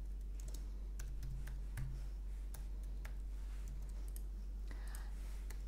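Typing on a computer keyboard: irregular, scattered key clicks while code is being edited, over a steady low hum.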